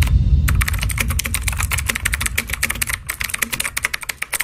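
Computer keyboard typing sound effect: a rapid, uneven run of key clicks. Under it a low rumble fades away.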